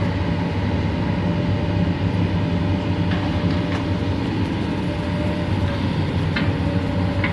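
Excavator's diesel engine running steadily, with a few light knocks in the second half.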